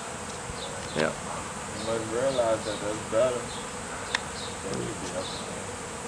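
A swarm of honey bees in flight, buzzing as a steady hum while the airborne swarm mills around a tree looking for a place to settle. A faint voice is heard briefly about two seconds in.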